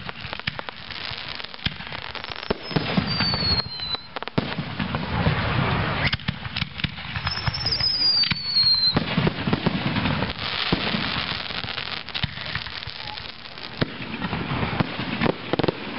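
Fireworks display: repeated bangs and crackling from bursting shells, with two high whistles falling in pitch, one a few seconds in and one about halfway through.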